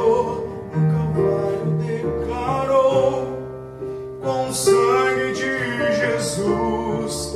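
Electric keyboard playing a slow piano-toned gospel ballad accompaniment, with a man singing a Portuguese vocal line over it.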